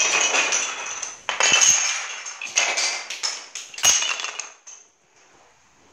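Wooden yut sticks thrown onto a wooden parquet floor, clattering in several loud bursts with a couple of sharp knocks, then dying down near the end.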